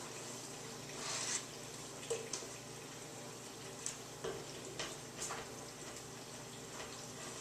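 A spoon scraping and knocking against a pot as sausage and onion are stirred together in melted butter, over a steady low sizzle. The scrapes and taps come irregularly, about ten of them.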